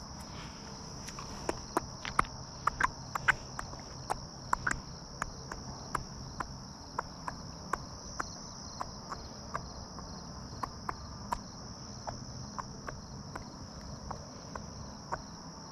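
Steady, high-pitched chorus of crickets, with a string of irregular sharp clicks over it, a few a second at first and sparser later.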